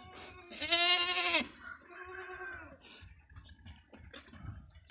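A goat bleating twice: a loud, quavering bleat about half a second in, then a softer, shorter one.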